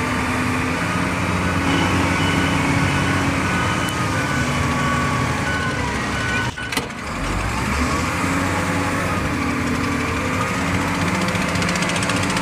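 Wheel loader's diesel engine running while loading sand, with several steady tones that shift in pitch now and then. The sound dips briefly about halfway.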